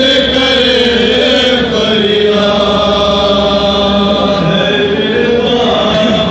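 A man's voice chanting a noha, a Shia mourning lament, through a microphone and loudspeaker, in long held notes that bend slowly up and down.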